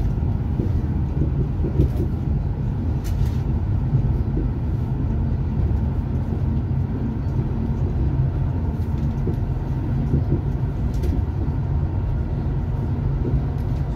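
Passenger train in motion, heard from inside the carriage: a steady, even low rumble.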